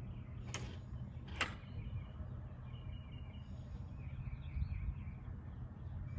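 Outdoor background noise: a steady low rumble, two sharp clicks in the first second and a half, and faint bird chirps in the second half.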